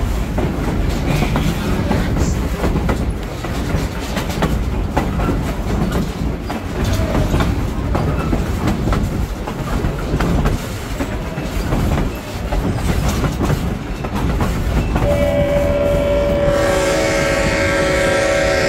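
Open-air railroad passenger coach rolling along the track, with a steady rumble and clickety-clack of the wheels. About fifteen seconds in, the pulling locomotive, C&O 5833, sounds one long, steady chord on its horn that is still sounding at the end.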